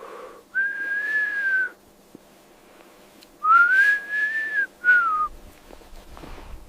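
Whistling: three high, pure notes. The first is long and gently arched, the second rises and then levels off, and the third is short and falls away.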